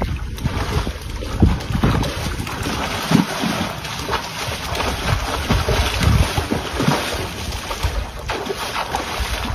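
Pool water splashing and churning as a dog swims and ducks under the surface, with gusts of wind rumbling on the microphone.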